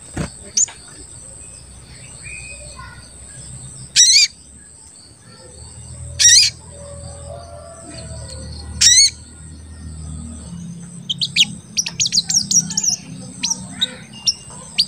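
Sogon sunbird calling: three loud, sharp chirps spaced a couple of seconds apart, then a quick run of short cuit-cuit chirps near the end.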